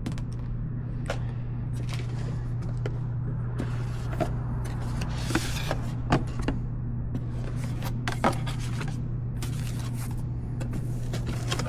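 Scattered clicks, knocks and rustling of objects being handled over a steady low hum, with a few sharper knocks around the middle.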